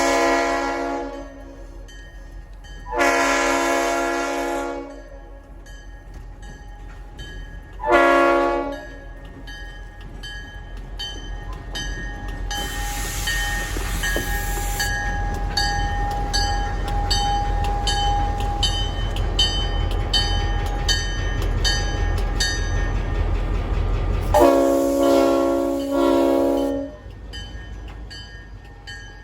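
Mississippi Export Railroad diesel locomotive running light and sounding its horn in the grade-crossing pattern: long, long, short, then a long blast near the end. Between blasts the locomotive's engine rumble grows louder as it approaches, with a brief hiss in the middle.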